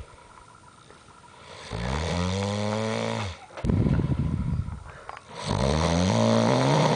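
A man, passed out asleep after a night of drinking, snoring loudly. There are two long, pitched snores, starting about 1.7 s and 5.4 s in, with a rougher, noisier breath between them.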